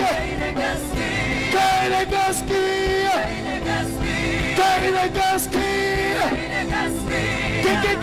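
Live gospel worship music: a group of voices singing long held notes that bend between pitches, over instrumental accompaniment.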